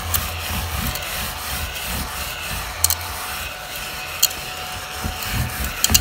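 Crumby ladybug mini vacuum, a small battery-powered hand vacuum, running with a thin steady whine while its base is rubbed back and forth over couch upholstery. There are a few sharp clicks along the way.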